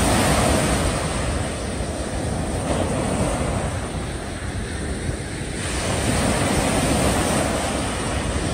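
Wind rushing over the microphone with waves washing at a sea breakwater: a steady noisy rush that eases a little midway and rises again.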